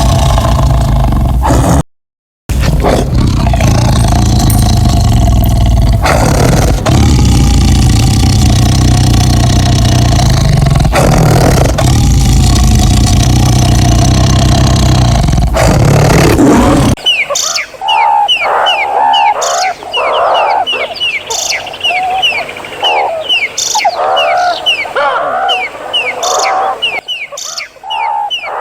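A large wild animal's loud, deep, continuous call for about seventeen seconds, with a short break about two seconds in; then it cuts to small birds singing, with quick, repeated downward-sweeping chirps.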